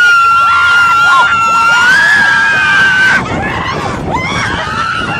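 Roller coaster riders screaming: one high scream held for about three seconds over other riders' shorter shrieks, then a few short whoops near the end.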